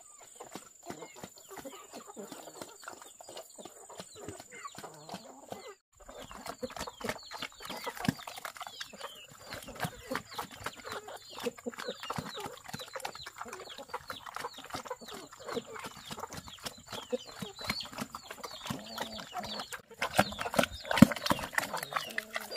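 Chickens clucking and calling, many short calls overlapping with scattered clicks, and the sound cutting out briefly about six seconds in and again near twenty seconds.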